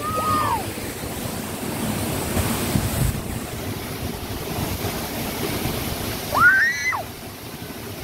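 Steady rushing of a waterfall and its rocky stream. A short high call from a voice rises and falls at the start and again about six and a half seconds in.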